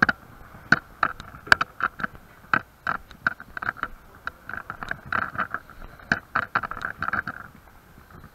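Footsteps crunching and scuffing over rubble and debris on a concrete floor, an irregular crackle of about two to three steps a second that stops about seven and a half seconds in.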